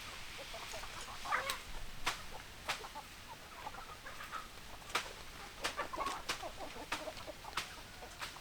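Several chickens clucking in short calls, with a dozen or so sharp clicks scattered among them.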